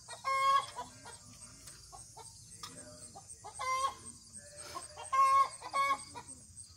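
Hens clucking: a few short, pitched calls, one about half a second in, one near four seconds and two more between five and six seconds, with quiet gaps between them.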